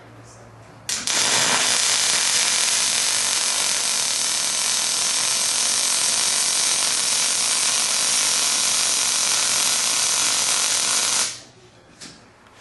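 MIG welding arc from a Miller 251 wire-feed welder running a bead on eighth-inch plate. It is a steady crackling hiss that starts about a second in when the trigger is pulled and cuts off suddenly about ten seconds later when the trigger is released.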